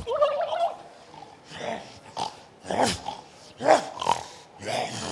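A young man's voice making rough, animal-like growls in short, irregular bursts, about six or seven of them.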